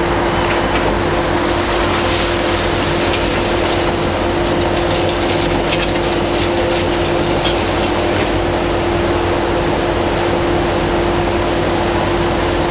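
Hitachi ZX650 demolition excavator's diesel engine and hydraulics running steadily under load with an even hum, and a few faint crackles of concrete and debris breaking as its crusher works the wall.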